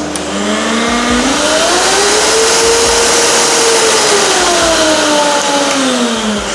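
FIRST FA-5546-2 vacuum cleaner running. Its motor whine and airflow rush climb in pitch and loudness to a peak about halfway, then wind back down near the end as the motor speed changes.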